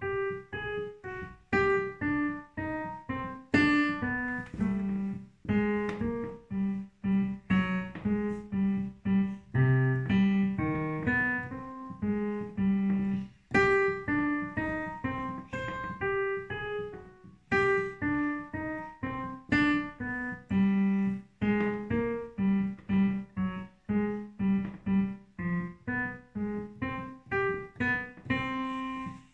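Digital piano played by a child with both hands: a simple piece in a steady stream of separate notes, each struck and dying away before the next.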